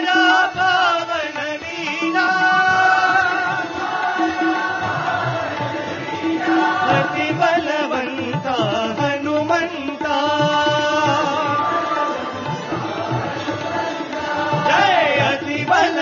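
Indian devotional song with melodic singing over tabla and a steady drone.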